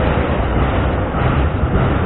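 Double-stack intermodal freight train's well cars rolling past close by: a loud, steady noise of steel wheels running on the rails.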